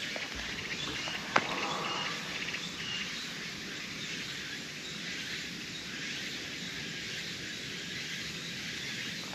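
Outdoor ambience: a steady high drone of insects, with a few bird chirps in the first few seconds and a single click.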